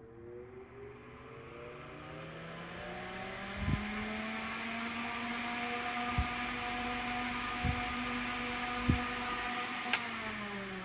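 Small electric fan motor with a plastic blade spinning up, its whine rising in pitch over the first few seconds and then holding steady, with a few low knocks while it runs. About ten seconds in a click sounds as it is switched off at the Variac, and the whine starts falling as the motor coasts down.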